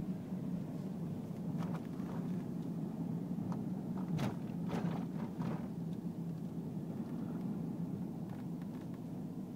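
Car engine and road noise while driving, a steady low hum, with several short ticks or knocks in the middle.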